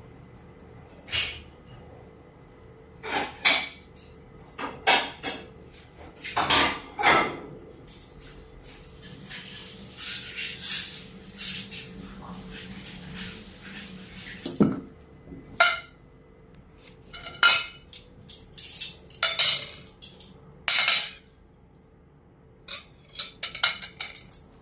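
Plates and metal cutlery clinking and knocking on a dining table, a string of irregular sharp clinks and knocks.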